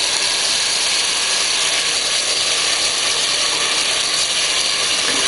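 Tomato pulp sizzling steadily and loudly as it is poured into hot oil and softened onions in a stainless steel pot.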